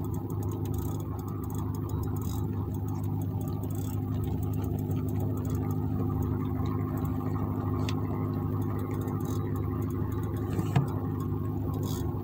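An engine idling steadily, an even low drone, with a single sharp knock near the end.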